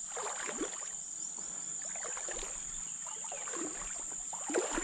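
Irregular water splashing as a hooked small hampala barb (sebarau) thrashes at the surface while being reeled in, over a steady high insect buzz.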